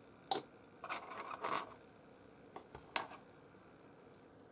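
Light clicks and clatter of a small glass bottle with a green plastic cap and small plastic model parts handled on a hobby desk: a sharp click about a third of a second in, a cluster of clatter around one to one and a half seconds, and a few light clicks near three seconds.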